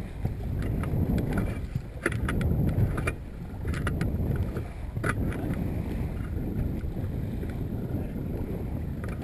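Wind buffeting the microphone of a bow-mounted action camera and choppy water slapping the hull of a small open-bow motorboat under way, a low uneven rumble broken by scattered sharp ticks.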